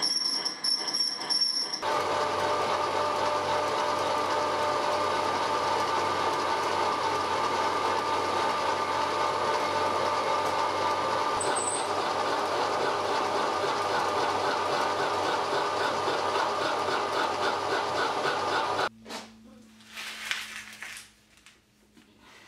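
A milling machine running and drilling into an aluminium disc clamped on its table: a steady, dense machine noise that starts suddenly about two seconds in and cuts off near the end. A brief, different machine sound with high steady tones comes before it, and a few light metal clinks of parts being handled come after it.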